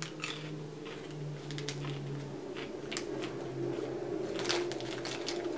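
Chewing crunchy chocolate-coated caramel popcorn, with scattered small crunches and crackles. Near the end, a plastic snack bag crinkles as it is handled.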